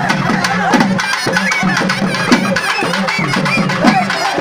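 Loud traditional folk festival music: fast, dense drumming with a wavering pitched melody over it, and crowd voices mixed in.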